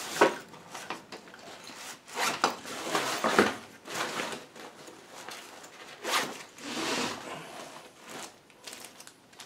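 Hands rummaging through a cardboard box of hunting gear, rustling and shifting packaged items in several short bursts.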